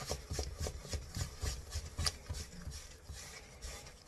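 Hands rolling bread dough into round rolls against a kitchen worktop: repeated soft rubbing and light knocks, several a second, quieter in the second half.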